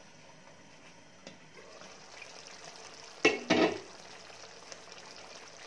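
Chicken simmering in its sauce in a pan: a faint click, then the bubbling and sizzling grows louder as the glass lid comes off. A little past halfway the lid clatters twice, the loudest sounds.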